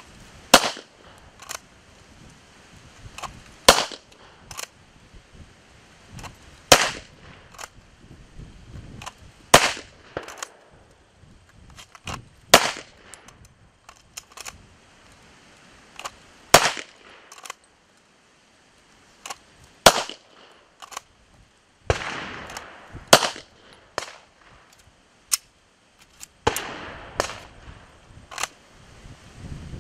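Sharp metallic clacks of a pistol being worked in a safety holster as it is loaded and drawn, roughly every three seconds. Each louder clack often comes with a lighter click just before it.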